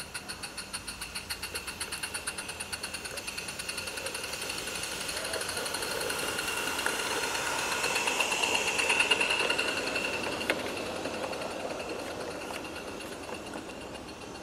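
Live steam garden-railway locomotive chuffing past with a passenger coach, its rapid exhaust beats about seven a second, with a high steady tone over them. It grows louder to a peak about nine seconds in as it passes, then fades as it draws away.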